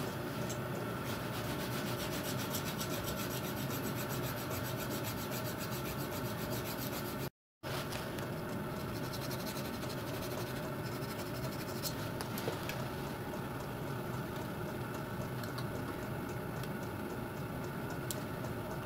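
Hand file rasping in quick strokes on the gap ends of a Meehanite cast-iron piston ring, opening the ring gap to size, over a steady background hum. The sound cuts out briefly about seven seconds in.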